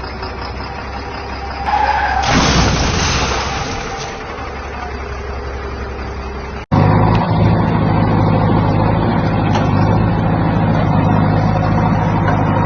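Heavy diesel construction machinery running, with a burst of rushing noise about two seconds in that lasts a couple of seconds. Near the middle the sound cuts off abruptly and comes back as a louder engine with a steady low hum.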